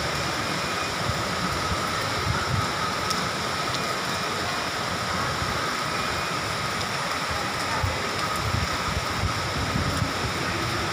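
Heavy rain pouring steadily, an even hiss with a low rumble underneath.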